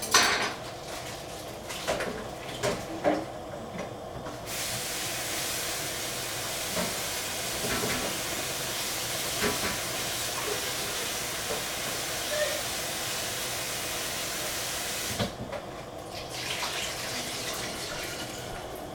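Kitchen tap running as mushrooms are rinsed under it: a steady water hiss that starts suddenly about four seconds in and cuts off about fifteen seconds in. Light clicks and knocks of handling come before and after it.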